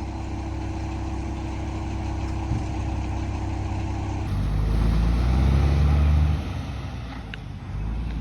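Truck engine running steadily. About halfway through it gets louder with a deep low rumble, then eases off.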